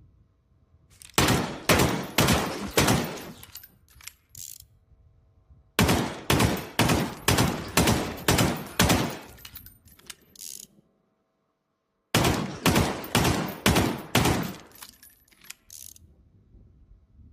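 Whitney Wolverine .22 semi-automatic pistol firing three quick strings of shots, roughly two to three shots a second, with a few sharp mechanical clicks in the pauses between strings.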